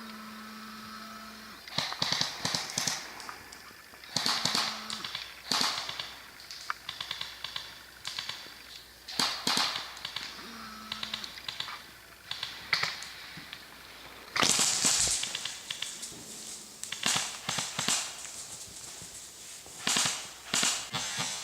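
Airsoft guns firing in short bursts of rapid snapping shots, a burst every second or two, with a louder, longer burst about fourteen seconds in.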